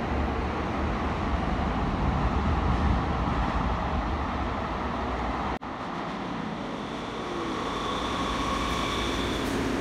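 Steady low rumble of a light-rail train, broken off abruptly a little over halfway. Then an older Muni Breda light-rail car pulls into the underground station, and a steady high whine joins its rumble in the last couple of seconds.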